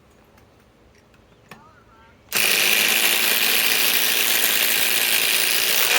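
Two cordless compact impact drivers, a Flex FX 1331 and a SKIL PWR CORE 20, hammering together as they drive long screws into wood side by side. The rattle starts suddenly a bit over two seconds in, runs steadily for about four seconds and cuts off sharply.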